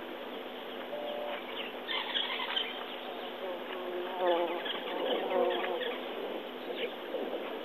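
Outdoor bush ambience dominated by a dense, steady buzz of insects, with a few brief warbling calls around the middle.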